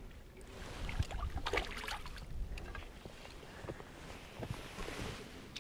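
A hooked king salmon splashing and thrashing at the water's surface as it is netted, the loudest splashes about one to two seconds in and a few smaller ones near the end, over a low rumble of wind on the microphone.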